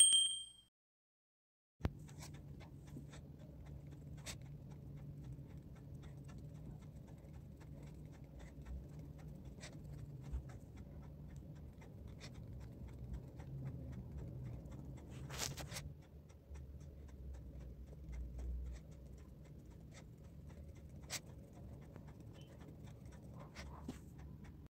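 Faint strokes and dabs of a round paintbrush on sketchbook paper, laying on poster colour, over a low steady room hum. A few light clicks or taps stand out here and there.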